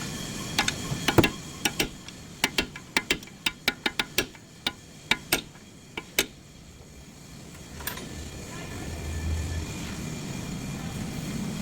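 A run of about fifteen sharp, irregular clicks over the first six seconds, then a low steady hum.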